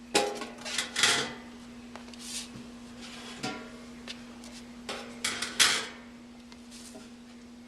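Metal chafer water pans being handled and set into a metal stand frame: several clanks and scrapes with brief metallic ringing, the loudest just over five seconds in. A steady low hum runs underneath.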